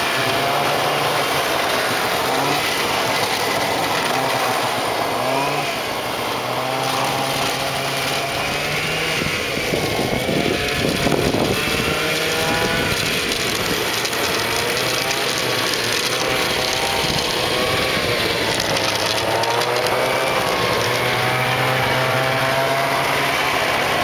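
Snowmobile engine running as it is ridden around, its note rising and falling as it speeds up and slows. A brief rush of noise about halfway through.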